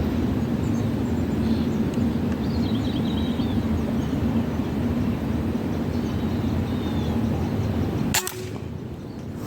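A single sharp air rifle shot about eight seconds in, over a steady low background hum with a few faint bird chirps.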